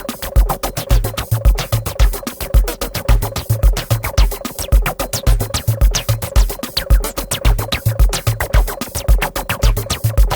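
Electronic background music with a steady beat: repeated deep bass hits under a fast, even run of hi-hat-like ticks.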